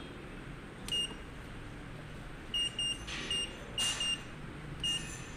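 Tanaka PF-7E weighing-scale indicator's keypad beeper giving a short high beep with each button press: about seven beeps, unevenly spaced, as password digits are keyed in.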